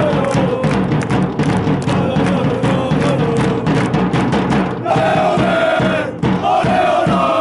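A small group of football supporters chanting a song in unison, with rhythmic hand-clapping.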